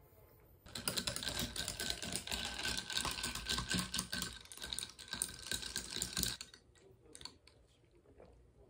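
Ice rattling and clinking against a tall glass of iced lemonade ade as it is stirred: a fast, dense run of clinks that stops about six seconds in. A few faint clicks follow.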